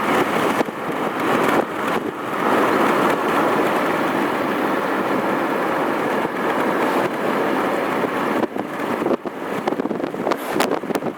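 A vehicle on the move: a steady, loud rushing of road and wind noise whose level wavers, with a few sharp crackles near the end.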